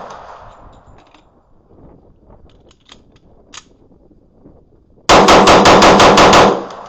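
A rapid string of about nine gunshots at roughly seven a second, starting about five seconds in, echoing out afterwards. Before it, the echo of an earlier string fades away and a few faint clicks are heard.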